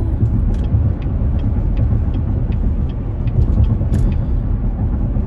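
Truck driving, heard from inside the cab: a steady low rumble of engine and road noise, with faint light ticks now and then.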